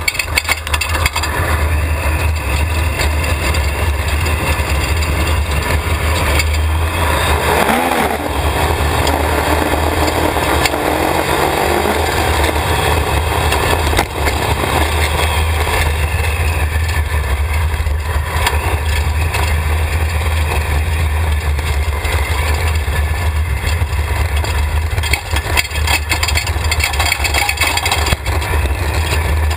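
Go-kart powered by a Triumph 955cc fuel-injected inline-three motorcycle engine, running under way with the revs rising and falling, with a clear climb in pitch about eight seconds in. A heavy, steady low rumble lies under it throughout.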